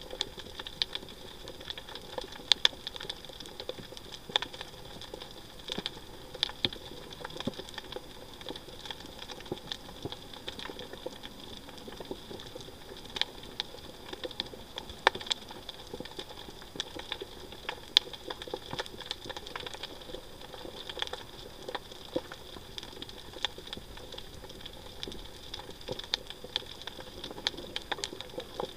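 Underwater reef ambience: a steady hiss dotted with irregular sharp clicks and crackles, several a second.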